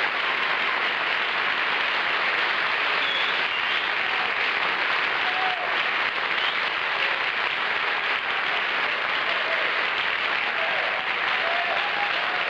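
Large studio audience applauding steadily and loudly for an entering guest.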